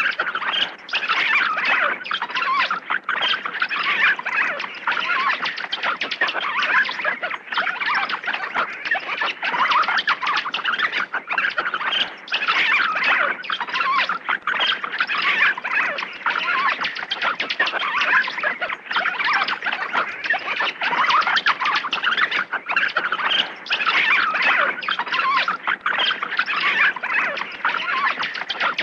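Dense, unbroken chorus of rapid high squeaks and chitters from many small animals calling at once.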